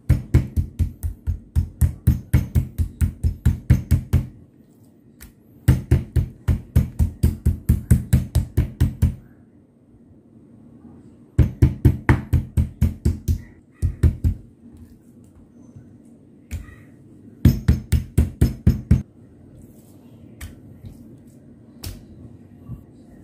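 Metal meat tenderizer mallet pounding a beef steak on a wooden cutting board: rapid runs of blows, about five a second, in four groups with short pauses between. A few faint knocks follow near the end.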